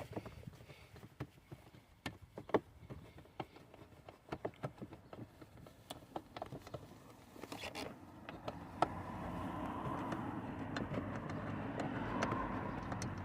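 Irregular light metallic clicks and taps of a spanner and Torx bit working a bolt loose. About eight seconds in, a steady low noise rises and grows louder.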